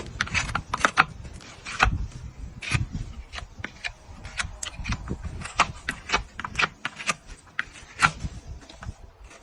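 Farrier's tools working a horse's hoof: a run of irregular sharp clicks and scrapes, several a second, as the hoof horn is cut and rasped.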